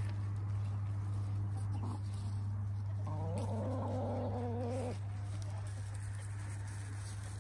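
A hen gives one drawn-out, wavering call about three seconds in that lasts nearly two seconds, with a short faint sound a second before it. A steady low hum runs underneath throughout.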